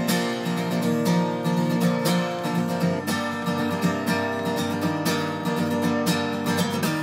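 Background music led by a plucked acoustic guitar, with steady strummed chords.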